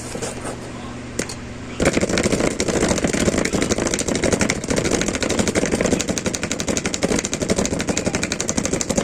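Speaker with a burnt-out amplifier humming, then about two seconds in it breaks into loud, rapid, continuous crackling and popping, the noise of a failed amplifier stage.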